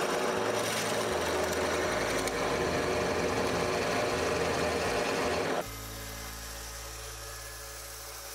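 Drill press boring through stacked plywood with a Forstner bit, a loud steady cutting noise that stops abruptly about five and a half seconds in. Quieter background music with low sustained notes follows.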